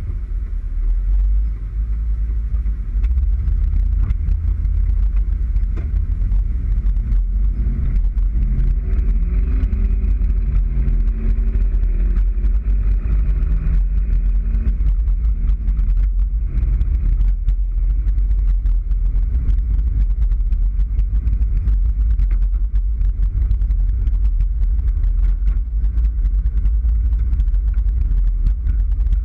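2001 Chevy Suburban 1500's V8 exhaust through a Flowmaster muffler, heard from inside the cab as the truck accelerates: a deep, loud rumble whose pitch climbs in steps for several seconds, then settles into a steady drone at cruising speed.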